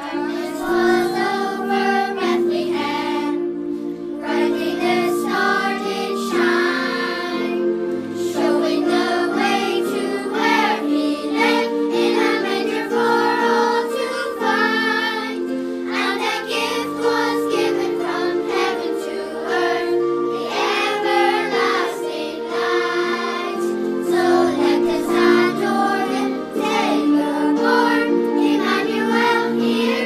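A primary-school children's choir singing a song together.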